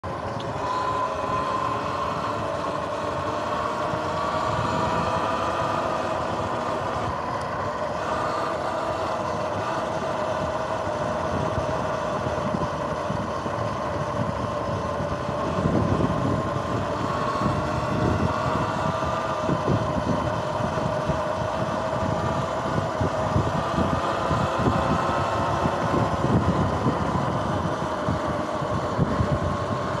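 Sur-Ron X electric dirt bike riding on pavement: a steady motor whine that drifts slightly in pitch with speed, over road and wind noise. About halfway through, wind gusts start buffeting the microphone.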